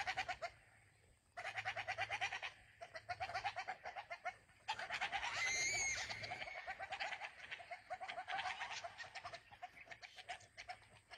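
A pack of dholes (Indian wild dogs) giving rapid chattering alarm calls in repeated bursts, the alarm they raise at a tiger. Near the middle a short high whistle rises and falls.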